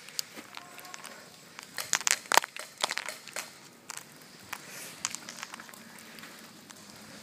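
Footsteps crunching through dry leaf litter and twigs on a forest floor, with brush crackling against the body and a quick cluster of sharp cracks about two seconds in.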